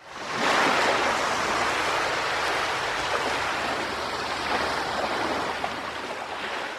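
A steady rushing noise, fading in over about half a second and cutting off abruptly at the end.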